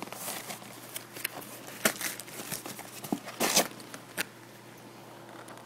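Plastic bag and cardboard box of LED bulb packaging rustling and crinkling as they are handled, with scattered light clicks and taps and a louder rustle about three and a half seconds in.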